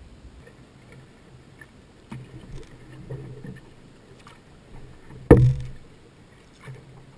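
Paddling a small wooden boat on calm water: soft paddle strokes and water noise, with one sharp knock that rings briefly about five seconds in, a paddle striking the hull.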